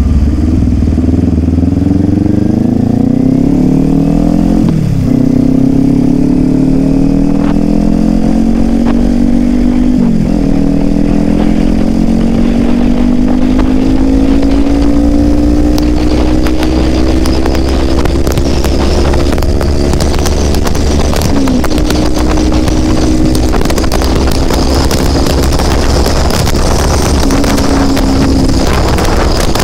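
Kawasaki Ninja 400's parallel-twin engine pulling through the gears: its pitch rises, drops sharply at upshifts about five and ten seconds in, then climbs slowly as the bike cruises, with brief dips near the end. Wind rush on the microphone grows through the second half.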